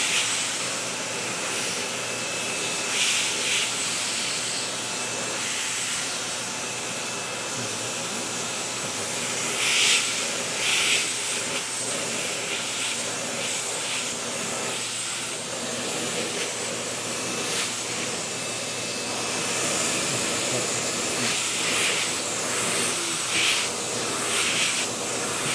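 Vacuum cleaner running steadily, its hose nozzle drawn over a cat's fur, with the airflow hiss briefly louder a few times.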